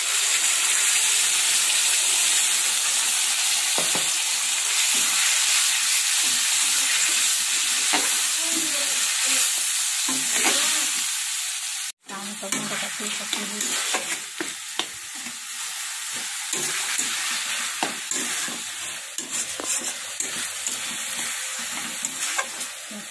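Ginger-garlic-chilli-cumin paste sizzling loudly in hot oil in an iron kadai while a metal spatula stirs and scrapes the pan. About halfway the sound breaks off abruptly, then tomatoes fry with a quieter sizzle under more spatula scraping.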